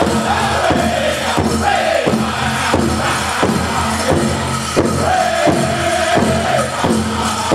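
Powwow drum group singing a chicken dance song: high voices holding long notes with falling phrases over a large powwow drum struck steadily, about three beats every two seconds.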